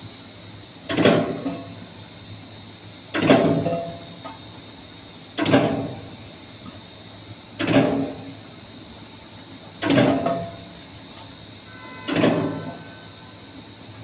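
Dog-treat extrusion and cutting line running, with a steady high whine. A sudden mechanical clatter comes about every two seconds and dies away in under a second as the machine cycles.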